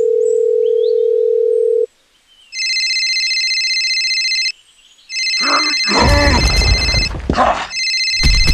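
Electronic tones: one steady beep lasting about two seconds, then a ringing tone in repeated bursts of about two seconds with short gaps between. In the second half a loud rumbling noise and a voice sound over the ringing.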